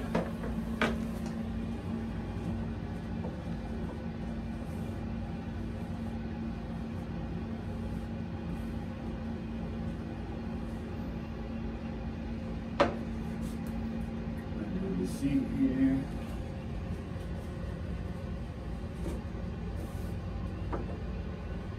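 A steady machine hum, one held low tone over a low rumble, that stops about two-thirds of the way through. Two sharp clicks, one just after the start and one a little past halfway, come as a plastic toilet seat is wiped down by hand with paper wipes.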